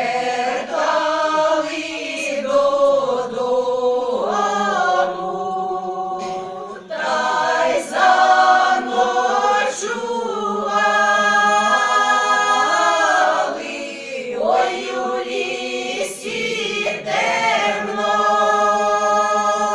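Women's folk ensemble singing a Ukrainian folk song together in phrases, with a long held chord in the middle.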